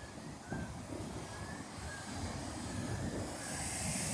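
Ocean surf: a low, rumbling wash of waves that slowly grows louder as a big wave comes in.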